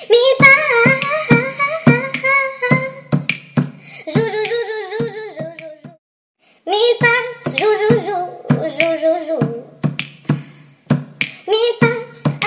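Background music from a novelty song: a high, wavering wordless vocal melody over a steady clicking beat, breaking off for about half a second midway.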